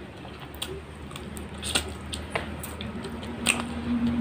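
Close-miked eating sounds: wet chewing clicks and squelches, then fingers squishing rice and curry on a steel plate. A low steady hum comes in near the end.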